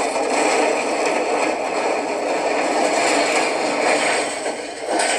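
Movie sound of a row of tall wooden library bookcases toppling one into the next, books spilling: a continuous clatter and crash that dips briefly near the end, then surges again.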